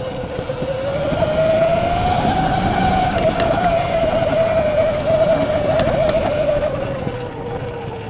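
Electric dirt bike's motor whining under throttle, rising in pitch over the first couple of seconds, holding, then slowly falling as the bike eases off, over tyre and trail noise.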